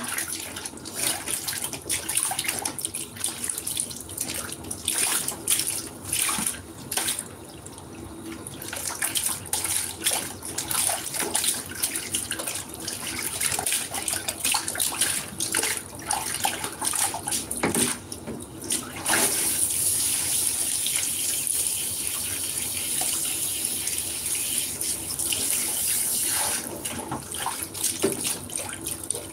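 Water splashing and sloshing in a plastic tub as a wet animal is scrubbed by hand, with a hand-held shower hose running into the water. About two-thirds of the way through, the irregular splashing gives way to a steady hiss of running shower water.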